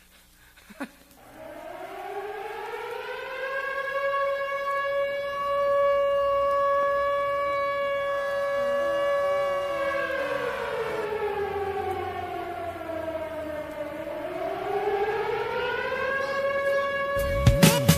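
Air-raid siren sound effect in a DJ mix: the wail winds up in pitch, holds a steady note for several seconds, slides down, then winds up again. Near the end a drum beat comes in as the next track starts.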